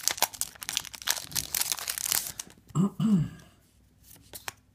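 Foil booster-pack wrapper crinkling as it is torn open and crumpled, a dense crackle that stops about two and a half seconds in. Faint handling clicks follow as the cards are held.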